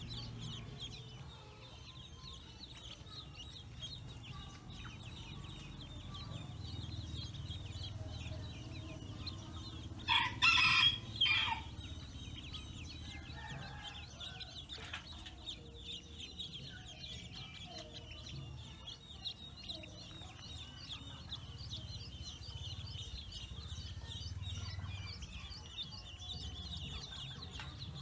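A flock of Pekin ducklings peeping continuously in a dense chatter of short, high chirps. About ten seconds in, a much louder call in three quick parts cuts through.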